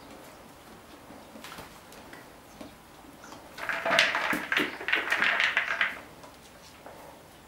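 A horse nudging a plastic treat ball with its muzzle across a rubber stable mat, the treats inside rattling in a quick run of clicks for about two and a half seconds, starting about three and a half seconds in.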